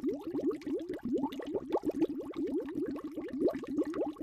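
Underwater bubbling sound effect: a steady stream of small bubble blips, each rising quickly in pitch, several a second.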